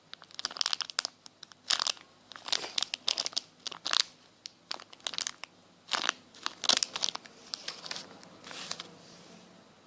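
Irregular crinkling and crackling from hands handling mini foam waffle squishies up close. It comes in quick clusters of sharp crackles and eases to a soft rustle near the end.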